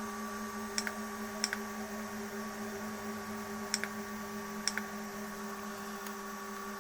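Homemade 3D printer running: a steady multi-tone hum with a few sharp ticks scattered through it.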